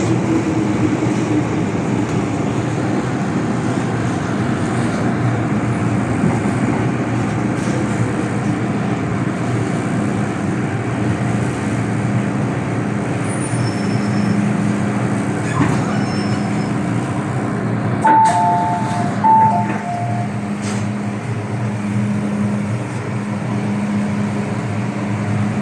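Inside an MTR M-train metro car in motion: steady rumble of wheels and running gear with a low steady hum. A short two-note electronic chime sounds twice about 18 seconds in.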